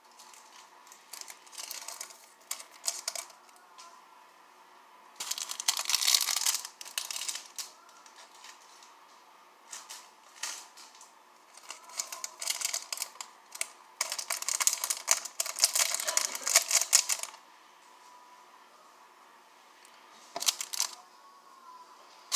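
Glitter being shaken out of small plastic shaker containers: several bursts of rapid rattling clicks, each lasting one to three seconds, with pauses between them.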